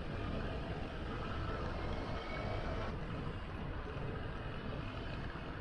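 Steady rumbling wind and road noise from a bicycle on the move through city streets.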